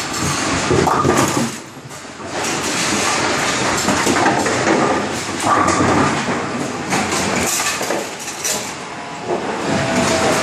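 AMF 82-70 bowling pinspotter running through its cycle: a continuous metal clatter and rattle of its moving mechanism and pins. It dips quieter twice, and a steady whine joins near the end.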